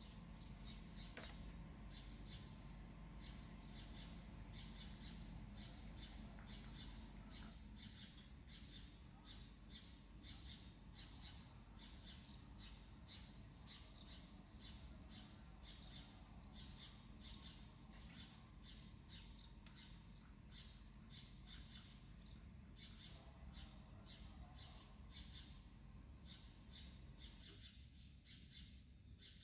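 A bird chirping faintly over and over, about two to three short high chirps a second, over a steady low hum; it fades near the end.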